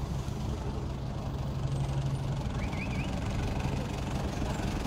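Motor vehicle engines idling and creeping past in slow road traffic: a steady low engine hum, its strongest note dropping away about halfway through.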